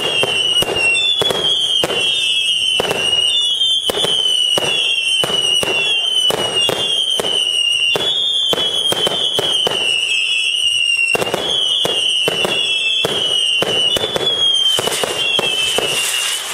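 Fireworks barrage: rapid bangs, two or three a second, mixed with a string of shrill whistles that each dip in pitch, some overlapping. A hissing crackle builds near the end.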